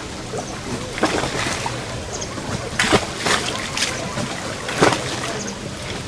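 Water of a reservoir sloshing and lapping, with a short splash about every second or two.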